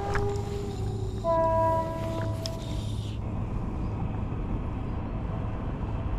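A train horn sounds two blasts of a steady multi-note chord, the second ending about two seconds in, over a low steady rumble that carries on afterwards.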